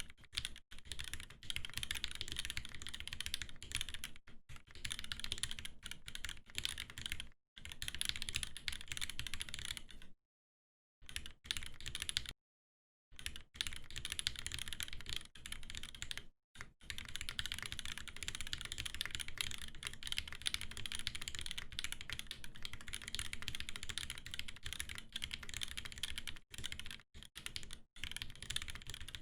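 Typing on an Aeboards Constellation 65, a top-mount custom mechanical keyboard with a brass plate and Durock linear switches lubed with 205g0 and fitted with 0.15 mm TX films: a rapid, steady stream of keystroke clacks. It stops for about a second twice, a third of the way in.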